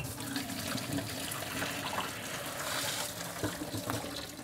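Water pouring from a tilted stainless steel pot into a kitchen sink as the pot is drained through the gap under its lid, with a few light knocks near the end. This is the hot cooking water being poured off boiled potatoes.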